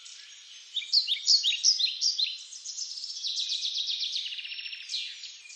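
Songbirds singing, several overlapping: quick high downslurred chirps and a rapid trill, loudest between about one and two and a half seconds in.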